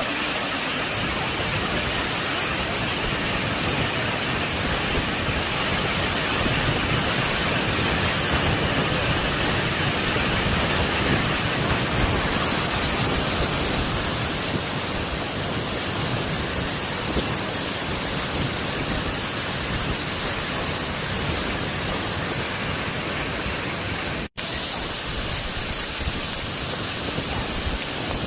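Minō Falls waterfall, water pouring steadily into its pool as a dense, even rushing noise. The sound cuts out for an instant about 24 seconds in and then carries on.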